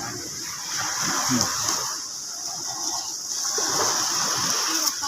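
Shallow water splashing and sloshing, swelling and fading in uneven surges, with a steady high hiss over it.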